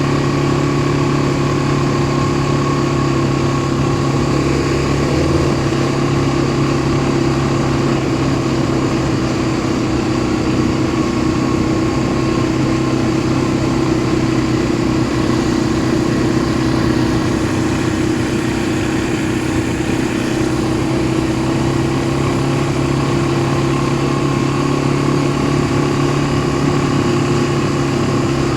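ATV engine running steadily, its pitch holding nearly constant with only slight rises and falls.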